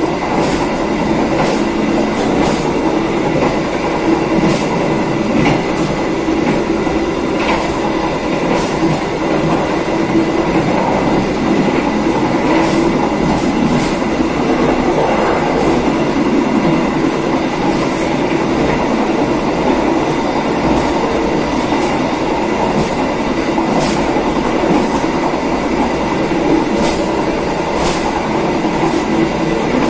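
Passenger train (KA Wijayakusuma) running along the rails, heard from its rear end. A steady, loud rolling rumble of wheels on track is dotted with scattered sharp ticks.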